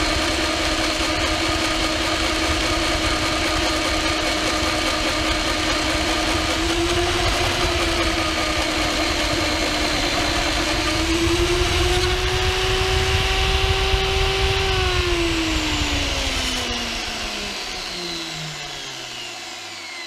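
Jancy magnetic drill's motor running under load as a taper-shank twist drill bores through thick steel plate. About two-thirds of the way in the motor's pitch rises as the load comes off, then it is switched off and winds down, its pitch falling away near the end.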